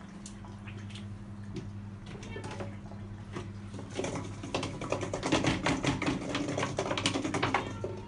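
Hand-washing clothes in a plastic bucket of water: wet splashing and sloshing that grows busy and loud from about halfway in until just before the end, over a steady low hum.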